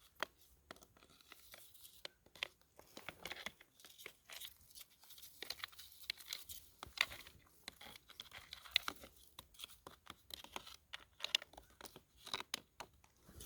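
Faint, irregular crunching and clicking of creek gravel and small rocks being shifted by hand, without any steady tone.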